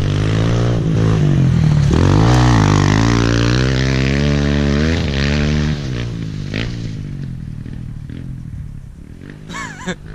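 Kawasaki KLX pit bike's single-cylinder four-stroke engine revving up and down as the bike rides past close by. Over the last few seconds it fades as the bike rides away.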